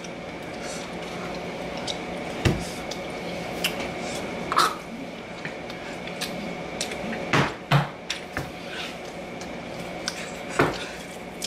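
Wet chewing and lip smacking from a mouth stuffed with many pieces of gum: several sharp smacks and squelches scattered over a steady low hum.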